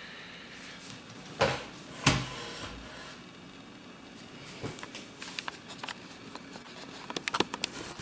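Small metal clicks and knocks of a BEST padlock and its brass interchangeable core being handled: two sharp clicks about a second and a half and two seconds in, then a run of quick small ticks near the end.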